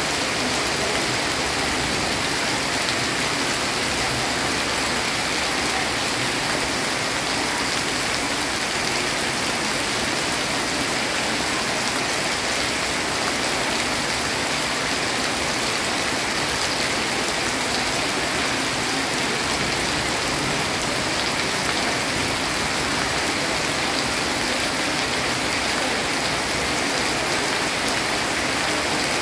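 Rain dripping off a roof and splashing onto a wet hard floor: a steady, even hiss of many drops that does not let up.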